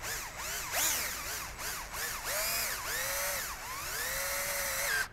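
Cordless drill motor whining as a twist bit bores a pilot hole through a plastic trim panel. It starts in short bursts, its pitch rising and falling with the trigger, then runs longer and steadier from about two seconds in.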